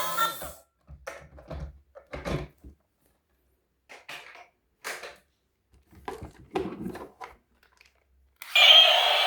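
A scattered, irregular series of short knocks and thunks, some in quick clusters, with a pause of about a second. Background music fades out at the start and comes back in near the end.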